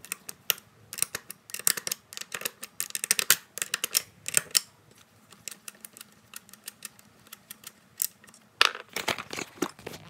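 Metal wrench clicking and clinking on a 13 mm bolt and the steering column housing as the bolt holding the electronic steering lock is loosened. There is a quick run of sharp clicks for the first four seconds or so, a quieter stretch, then another cluster of clicks near the end.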